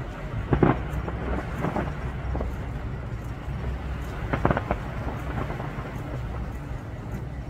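Distant fireworks going off: a continuous low rumble of echoing booms, with sharper bangs about half a second in and again about four and a half seconds in.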